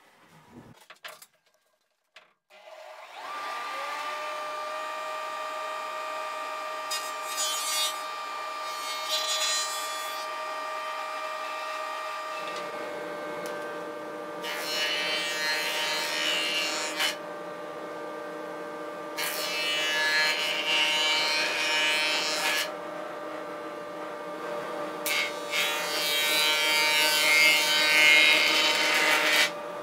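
Surface planer (jointer) starting up a couple of seconds in, its motor spinning up to a steady whine, then cutting as a wooden board is pushed over the cutterhead: several loud rushing bursts of two to four seconds each, one per pass, with the machine running steadily between them.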